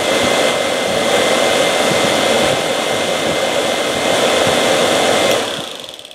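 Range Rover heater blower motor and fan running on battery power with a steady whir and a faint high whine. The power is cut about five seconds in and the fan spins down. The motor has just been freshly oiled and runs well, though the owner notes an annoying tick.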